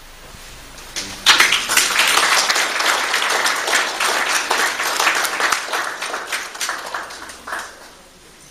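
A small audience applauding, starting suddenly about a second in and dying away near the end.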